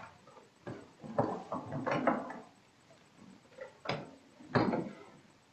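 Footsteps and wooden knocks as someone climbs the wooden pulpit stairs, a busy run of irregular thuds. Near the end come two sharper wooden knocks as a book is set on the pulpit's reading desk.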